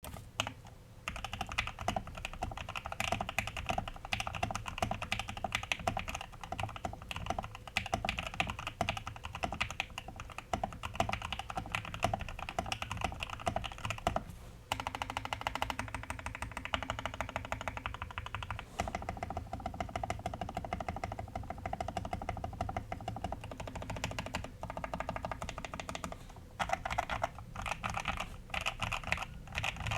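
Fast, continuous typing on a Mode65 custom mechanical keyboard with lubed and filmed ThicThock Marshmallow switches, PBT keycaps and an FR4 plate in an isolated top-mount aluminum case. The keystrokes run in a dense stream, with a brief break just before 15 s and a few short pauses near the end.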